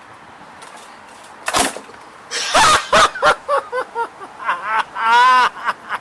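Stihl BR700 backpack blower being pull-started by its recoil rope, the engine cranking over without catching. A sharp knock comes about a second and a half in, then a run of short, loud pulls.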